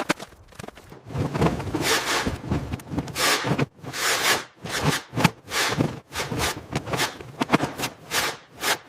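A series of rough, irregular scraping or brushing strokes, about two a second, after a quieter first second.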